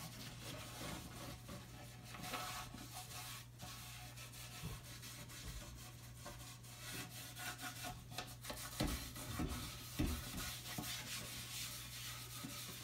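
Shellac-soaked pad rubbed in circles over the wooden bowl of a Persian tar, a soft, uneven swishing of cloth on wood. A few knocks sound around nine to ten seconds in.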